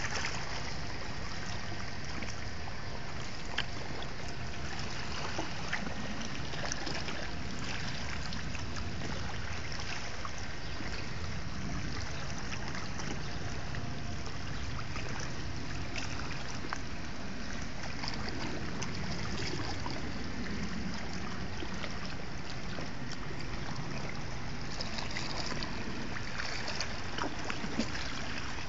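Sea water washing over a beach of rounded pebbles: a steady wash with many small scattered clicks.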